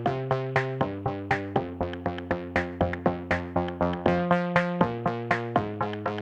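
Instrumental music: a synthesizer playing short notes that die away quickly, in a steady rhythm of about three to four a second, over chords that change every second or so.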